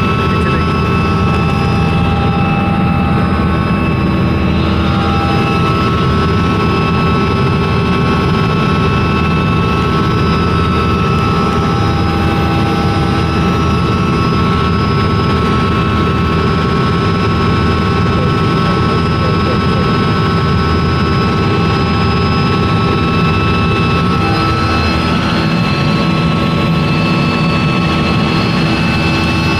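Helicopter engine and rotor running steadily in flight, heard from inside the cabin: a loud, even rumble with several constant whining tones over it.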